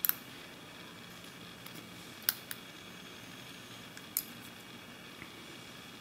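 Hook pick and tension wrench working in the pin cylinder of a Commando military brass padlock: a few light, sharp metal clicks at irregular intervals, two of them close together about two seconds in and another about four seconds in.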